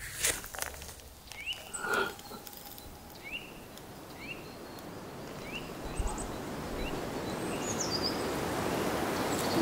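Short rising bird calls about once a second, with a higher falling note near the end, over an outdoor hiss that grows louder toward the end. Two short knocks come in the first two seconds.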